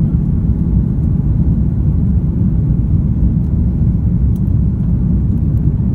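Cabin noise of an Airbus A330-300 airliner in its climb after takeoff: the steady, deep rumble of the engines and rushing air, heard from a window seat.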